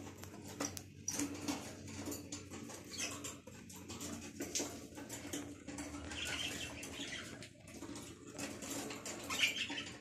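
A flock of caged budgerigars chattering, a steady run of quick, high chirps and warbles, with louder bursts of calling about six and nine seconds in.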